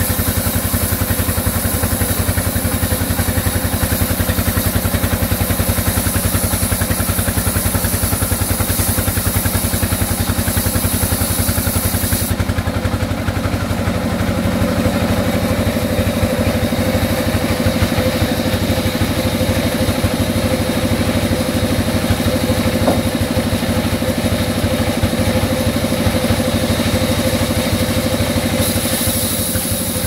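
Large band sawmill running as a mango wood slab is fed through the blade: a loud, steady mechanical drone with a fast, even pulsing from the drive. The tone changes about halfway through.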